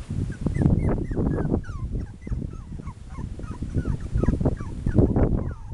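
A litter of Texas Heeler puppies whimpering and squeaking together: many short, high-pitched cries that slide up or down in pitch, overlapping one another, over a low rumbling noise.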